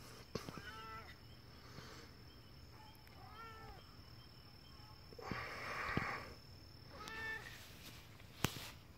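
A domestic cat meowing three times in short mews that rise and fall in pitch. A brief rustling noise about five seconds in is louder than the meows.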